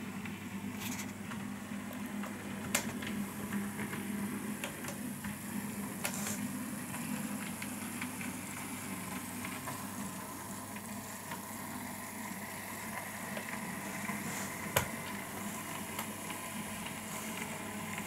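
Bachmann OO gauge model diesel locomotive running along the track: a steady electric motor hum with its wheels rolling on the rails, and a few sharp clicks along the way.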